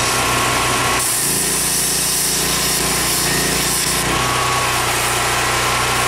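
A handheld air tool cutting through the rusted sheet-steel rocker panel. It turns harsher and louder from about one to four seconds in, over a steady mechanical drone that runs throughout.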